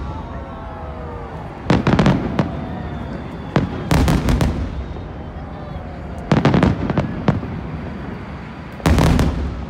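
Fireworks display: aerial shells bursting in four clusters of rapid bangs, about two to three seconds apart, over a steady low rumble.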